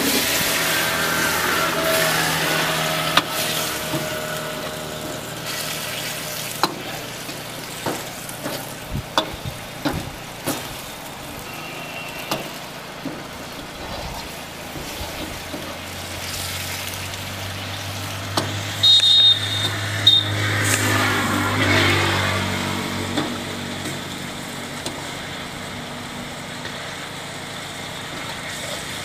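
Chicken masala sizzling in a black iron wok while a long-handled metal ladle stirs and scrapes it, knocking against the pan again and again. A low hum swells and fades about two-thirds of the way through.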